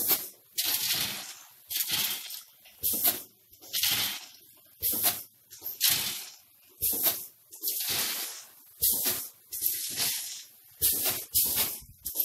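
Automatic snack pouch packing machine running, with a short burst of hissing and rattle about once a second, one per machine cycle.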